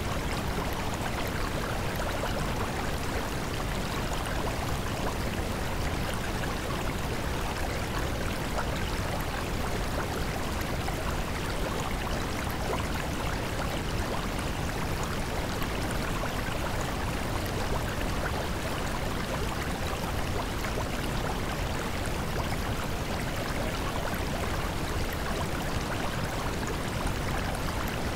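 Steady rushing noise, even from low to high pitches and unchanging throughout, like a flowing stream: the masking background track of a subliminal affirmation recording.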